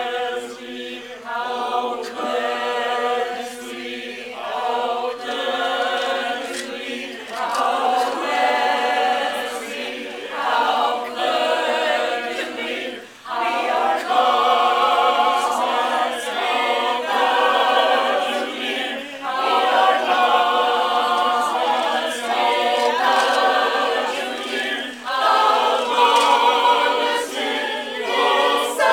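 Mixed choir of women's and men's voices singing together in sustained phrases, with a brief break for breath about thirteen seconds in.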